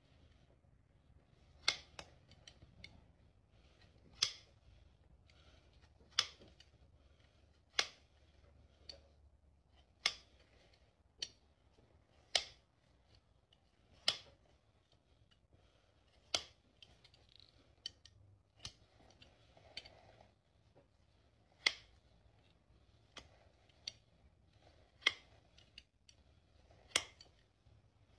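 Hoof nippers snipping through a horse's hoof wall while it is trimmed: a sharp crisp snip about every two seconds, some with a smaller click just after.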